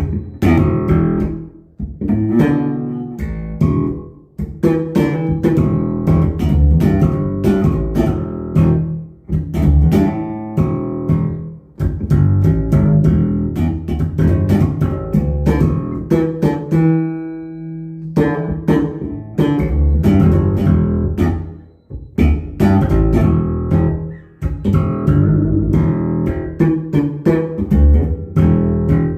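Fender American Professional II Precision Bass played through a Fender Stage 800 bass amp set flat, plucking a busy line of notes with a deep low end. About two-thirds of the way through, one note is left ringing for a second or so before the playing picks up again.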